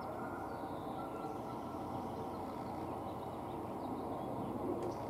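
Steady low background rumble with no breaks, with a few faint high chirps from small birds over it.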